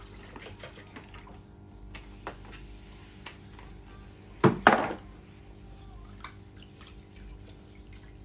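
Glutinous rice being washed by hand in a bowl of water, with the water swishing and small clicks of grains and the bowl. About four and a half seconds in there are two loud clatters close together.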